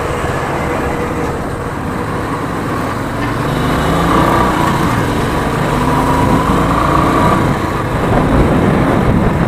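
Royal Enfield Classic 350 single-cylinder motorcycle riding through city traffic: steady engine and road noise with wind on the microphone. Faint held tones from surrounding traffic come through for a few seconds in the middle.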